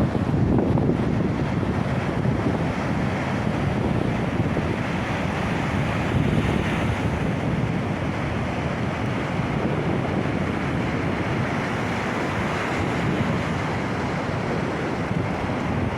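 Baltic Sea surf washing onto the shore in a steady rush, with wind buffeting the microphone.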